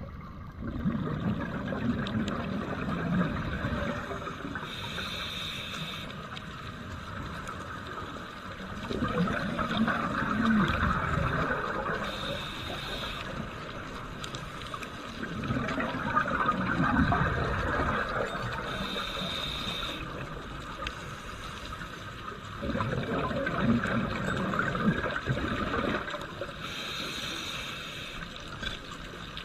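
Scuba diver breathing through a regulator underwater, four slow breaths about seven seconds apart. Each breath is a burst of gurgling exhaled bubbles, then a shorter hiss of air drawn through the regulator.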